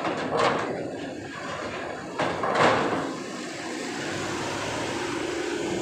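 Coach bus rolling off a ferry's steel loading ramp, with two loud clattering bursts about half a second in and about two and a half seconds in, over a steady vehicle noise.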